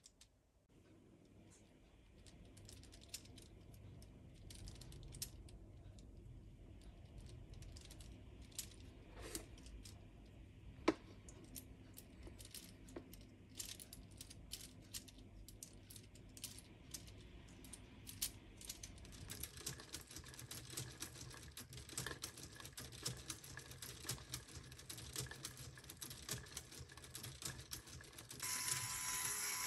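Plastic parts of a Lego Technic V8 engine model clicking and rattling as it is handled and turned by hand, the clicks coming thicker in the second half. Near the end a louder steady hiss with a thin tone starts suddenly.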